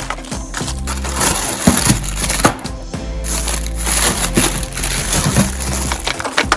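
Background music with a steady low bass line, over continual crinkling, crackling and small clicks of plastic being handled.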